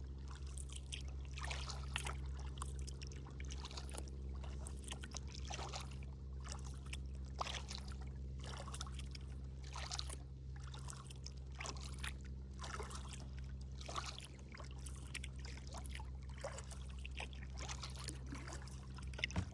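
Kayak paddle strokes in water, a splashy swish with dripping about once a second, over a steady low hum.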